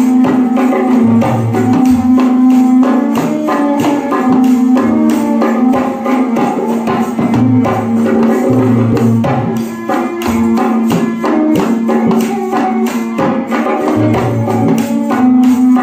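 Folk devotional music: a bowed string instrument plays a melody over a steady held tone, while a small hand-held drum keeps a quick beat.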